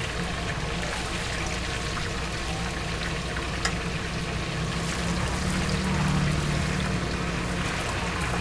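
Oil bubbling and sizzling in a wok as braised snacks deep-fry, with scattered crackling pops and one sharper click about three and a half seconds in. A steady low hum runs underneath.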